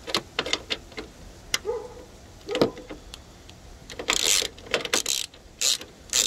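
Hand ratchet with a 10 mm socket clicking in short, irregular runs as it is swung back and forth to tighten the screw on a car battery's hold-down bracket, with longer, louder runs of clicks from about four seconds in.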